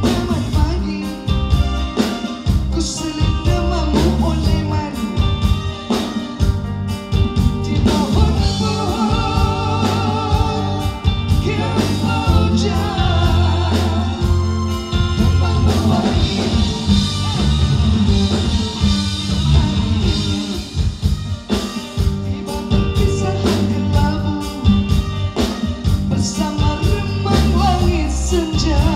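Live band music: a woman sings a Malay pop song into a microphone over keyboard, electric guitar and a drum kit keeping a steady beat.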